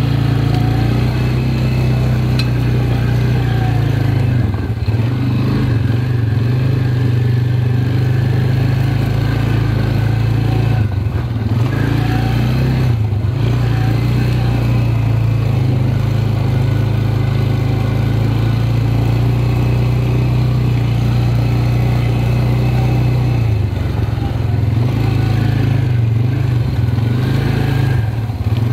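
ATV engine running steadily under way, with its note dipping briefly a few times as the throttle eases and picks up again.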